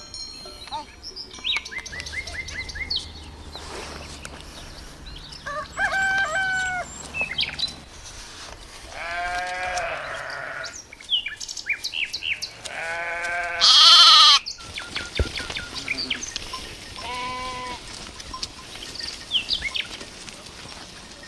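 Sheep bleating about four times, each bleat a wavering call, over small birds chirping throughout. A short, loud, harsh noise breaks in about two thirds of the way through.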